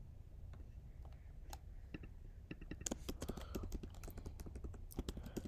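Typing on a computer keyboard: a few scattered clicks at first, then a quicker run of keystrokes from about halfway through.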